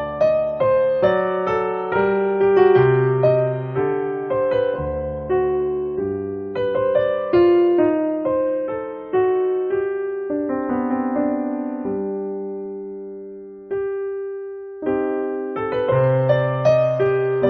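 Background music played on piano: single notes and chords, each struck and left to ring. The playing thins to one slowly fading note about two-thirds of the way through, then picks up again.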